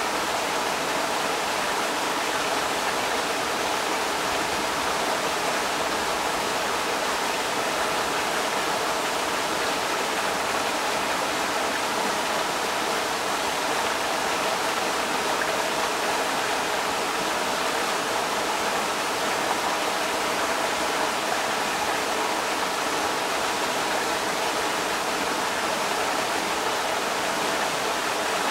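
Creek water rushing over rocks, a steady, even rush with no breaks.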